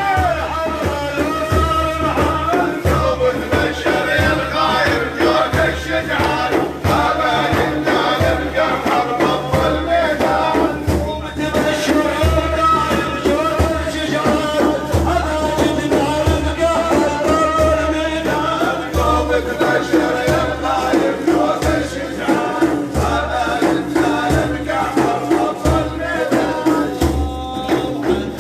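A male voice singing an Islamic madih, a devotional praise song for the Prophet, in a wavering melody over steady drum beats.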